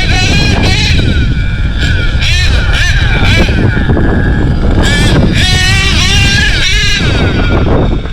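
HPI Savage X4.6 nitro RC monster truck's small two-stroke nitro engine being driven hard. Its high-pitched whine rises and falls with the throttle over and over, over a heavy low rumble of wind on the microphone.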